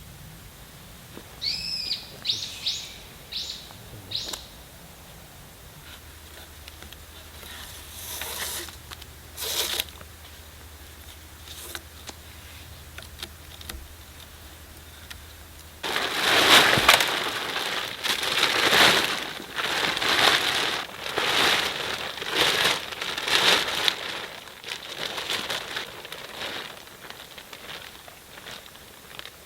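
A bird calls a short run of five or six quick whistled notes. Later comes a long stretch of loud, uneven rustling and crackling in surges.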